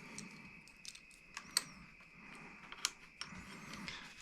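Light clicks and taps of small metal hand-guard mounting hardware being handled and fitted, with two sharper clicks about a second and a half and nearly three seconds in.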